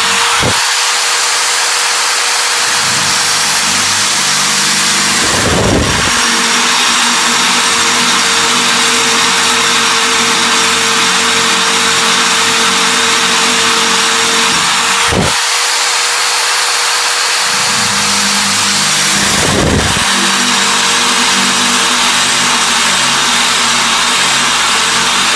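Brazed diamond core drill bit grinding through hard material, a loud, steady hissing grind over a steady motor whine, with a few brief changes in the sound as the cut goes on.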